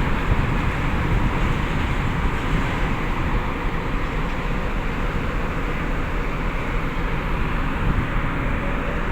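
Steady low rumble and noise of machinery on a cargo ship during cargo discharge, unbroken throughout.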